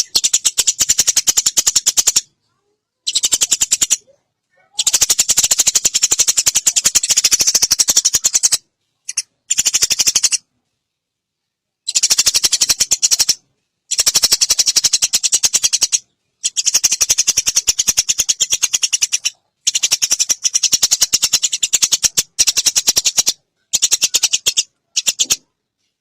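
Recorded songbird mastering call: a fast, dry, high rattling trill of rapid clicks, repeated in about a dozen bursts of one to four seconds with short pauses between.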